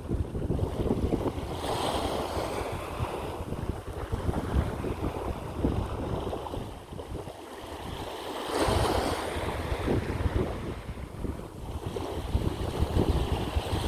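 Sea waves washing onto the shore, swelling twice about six seconds apart, under strong wind buffeting the microphone.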